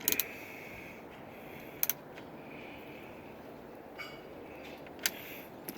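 A few isolated sharp clicks and taps from a hand tool on the mirror's mounting bolts as they are tightened, over a faint steady hiss.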